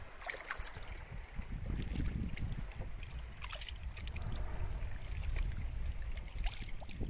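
Kayak paddling: water splashing and trickling off the paddle blades in scattered short bursts, over a low rumble of wind on the microphone.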